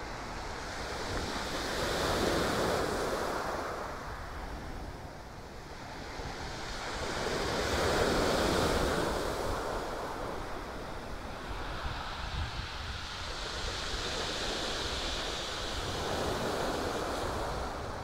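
Small sea waves breaking and washing up a shingle beach, the surf swelling three times, with wind on the microphone.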